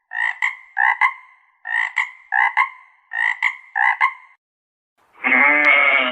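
A frog croaking in quick double notes, six pairs about half a second apart, then about five seconds in a longer bleating call starts, as from a goat.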